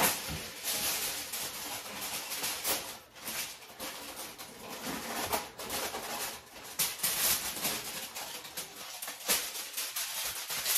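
Aluminum foil crinkling and rustling as it is handled, with irregular crackles throughout.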